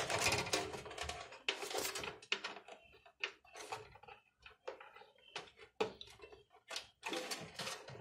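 Cable handling inside a metal PC case: a SATA data cable and power leads rubbing and clicking against the chassis and drive as the SATA cable is pushed into a DVD writer. Irregular clicks and scrapes, busiest in the first couple of seconds.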